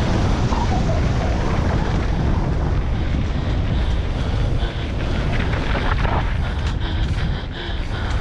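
Enduro motorcycle engine running under load while riding, with heavy wind buffeting on the helmet-camera microphone. A few short knocks from the bike on rough ground come about six to seven seconds in.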